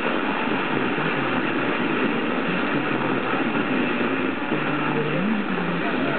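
FM car radio on a weak, distant station: a steady hiss of static covering the programme, which is barely heard beneath it as the tropospheric signal fades.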